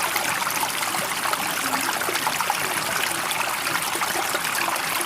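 Running water with a steady rushing and trickling sound, even in level without the rise and fall of breaking waves.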